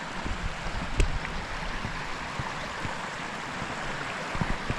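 A stream flowing over and between boulders, a steady rushing hiss, with scattered knocks and crunches of boots on loose stones, the sharpest about a second in.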